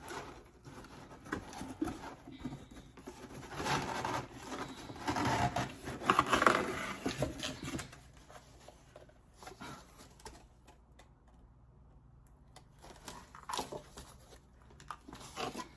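Cardboard box and packing material being handled and rustled while parts are lifted out, with scattered scrapes and clicks; busiest in the first half, quieter for a few seconds after, then rustling again near the end.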